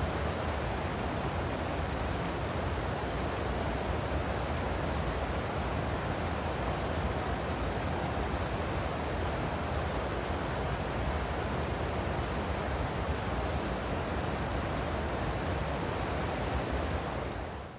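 Shallow stream running over a cobble bed: a steady rush of water that fades out near the end.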